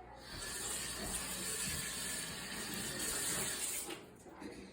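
Kitchen tap running water into a sink while dishes are washed; the flow starts at the beginning and is shut off about four seconds in.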